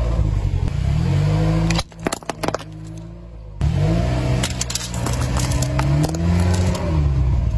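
A car engine running and revving, its pitch rising and falling as the car creeps forward over objects. About two seconds in, it drops away into a quieter stretch of a couple of seconds with a few sharp crackles, then the engine comes back.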